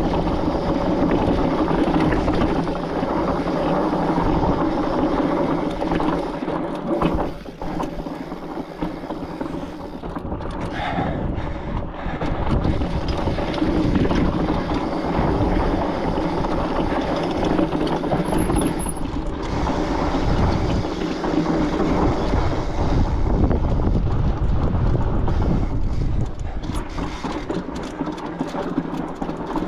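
Fat-tyre mountain bike rolling over a sandy trail and sandstone: a steady rumble and rattle from the tyres and bike, with wind on the camera microphone.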